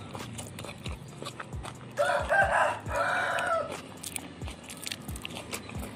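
A rooster crows once about two seconds in, a call of about a second and a half broken into two parts, loud over close chewing and mouth clicks of someone eating.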